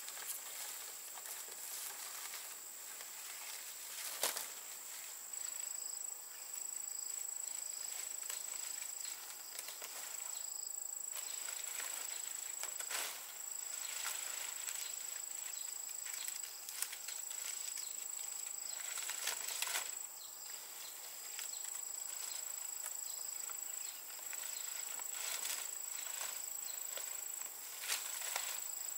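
Rustling and crackling of fan-palm leaves being handled and laid on a bamboo roof frame, with a sharp click about four seconds in. Behind it, insects trill steadily at a high pitch.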